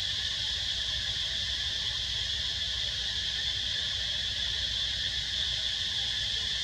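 Steady, high-pitched drone of an insect chorus in the forest canopy, unchanging throughout, over a faint low rumble.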